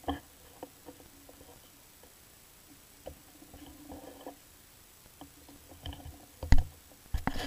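Scattered clicks and knocks close to the microphone, handling noise on or around the camera, with a loud thump about six and a half seconds in and a cluster of knocks near the end.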